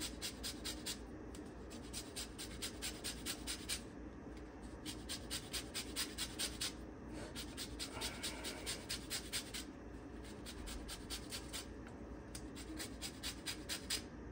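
Grapefruit peel being rasped on a zester or grater: quick scraping strokes, about five a second, in runs broken by short pauses.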